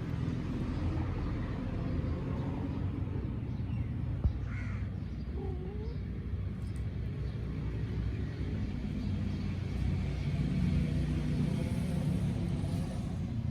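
Mother cat giving a couple of short calls about halfway through, over a steady low rumble of background noise.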